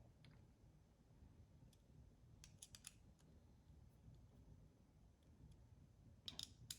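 Near silence with a few faint clicks of small parts being handled: a short cluster about two and a half seconds in and a couple more near the end.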